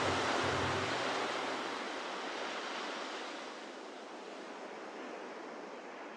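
Ocean surf washing in an even hiss that slowly fades out. The last low notes of the song die away in the first second or two.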